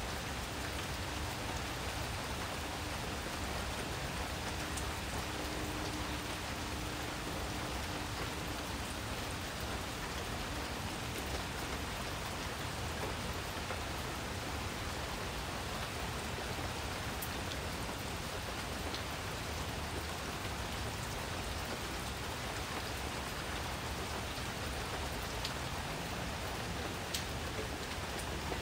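Steady rain falling, a constant even hiss of rain with no break.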